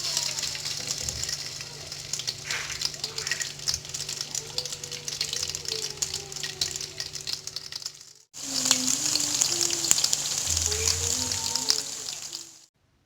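Spoonfuls of corn fritter batter frying in hot oil: a dense, crackling sizzle. It breaks off briefly about eight seconds in, resumes, and stops shortly before the end.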